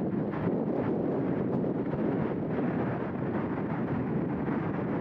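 Steady rushing roar of jet airliner engines, mixed with wind buffeting the microphone.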